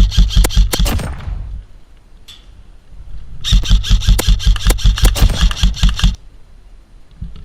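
Airsoft rifle firing on full auto in two long bursts, rapid even shots: the first stops about a second in, the second runs from about three and a half to six seconds in.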